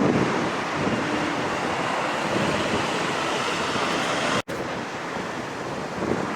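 Mitsubishi SH-60J Seahawk helicopter's rotor and twin turboshaft engines running close by, a dense steady rushing noise, with gusty wind buffeting the microphone. The sound drops out for an instant about two-thirds of the way through.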